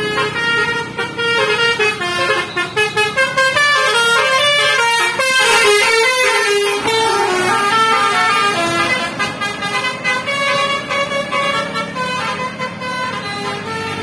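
Tour bus's basuri (telolet) musical horn playing a fast melodic tune of short stepped notes as the bus drives past.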